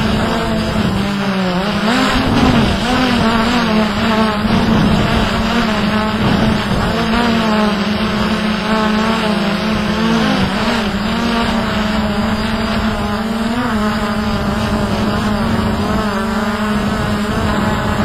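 Hubsan X4 Pro quadcopter's motors and propellers whining in flight, heard from on board, with the pitch constantly wavering up and down as the motors correct against gusty wind.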